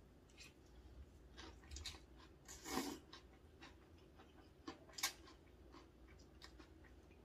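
A person slurping up thin cold wheat noodles and chewing. A long slurp comes about three seconds in and a shorter, sharper one about five seconds in, amid small wet mouth clicks.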